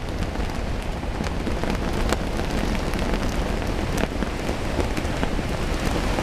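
Strong wind buffeting the microphone: a steady rushing rumble with a few sharp cracks.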